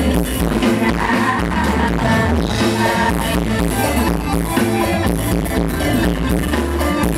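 Live mor lam band music played over the stage loudspeakers, with a steady pulsing bass beat.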